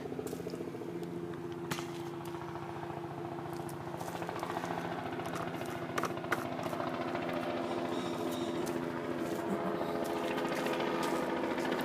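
Honda HRR216 lawn mower's small single-cylinder engine running steadily, getting slightly louder near the end. It runs only on a squirt of carb cleaner, a sign the owner takes for a fuel problem, old or contaminated fuel.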